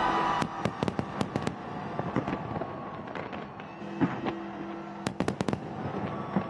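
Display fireworks going off: rapid clusters of sharp bangs and crackles over a steady rumble.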